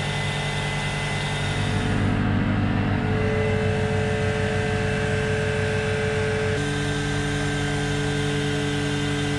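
A boat's reverse-osmosis water maker running: a steady mechanical hum from its pump. Its note shifts to a new pitch about two-thirds of the way through.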